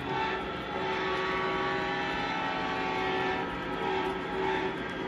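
Model diesel locomotive's onboard sound system blowing its horn: a short blast, a long one, then two short ones, over the steady running sound of the engine.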